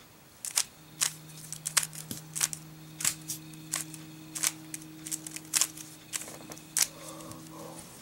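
Rubik's Cube being twisted by hand through a pattern algorithm: a string of sharp plastic clicks and clacks, two or three a second, as the layers turn. A faint steady low hum runs beneath most of it.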